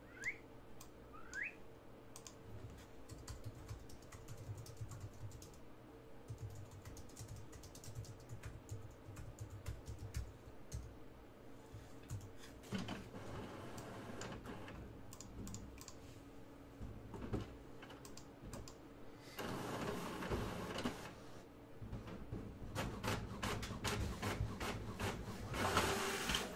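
Typing on a computer keyboard: runs of quick key clicks with pauses between them, in denser flurries toward the middle and near the end.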